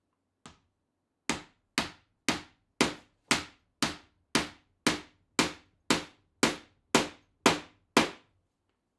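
Hammer striking a wooden block held against the end of a wooden rail. One light tap, then fourteen even blows about two a second, each with a short ring.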